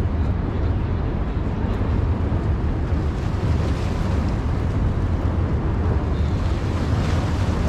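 Wind buffeting the microphone on an open waterfront: a steady low rumble with a fainter hiss above it.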